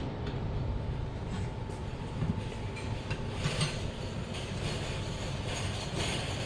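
Steady low background rumble of room noise with a faint steady hum, and a few light clicks about one to four seconds in.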